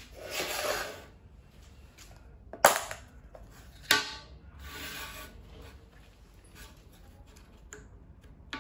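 A plastic screwdriver-bit case handled on a steel table: a rubbing slide at the start, two sharp plastic clacks as the case is worked open, then softer rubbing and a few light clicks as bits are pulled from their holders.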